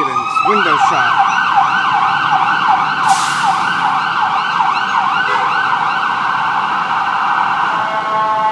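Ambulance electronic siren changing from a falling wail into a fast yelp, the pitch sweeping up and down about three or four times a second. Near the end it switches to a steady, horn-like blare.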